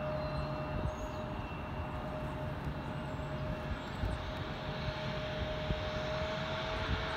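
Turbofan engines of a twin-engine United regional jet on the runway, heard from a distance: a steady whine over a rushing roar that grows a little louder in the second half.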